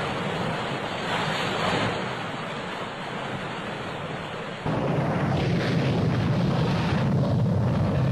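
Rough sea and wind buffeting the microphone, waves washing over a ship. About halfway through, the sound cuts abruptly to a louder, deeper rush.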